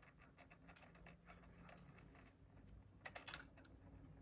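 Faint clicks and taps of a diecast toy car being handled and lifted off a clear acrylic display stand, with a brief cluster of sharper clicks about three seconds in.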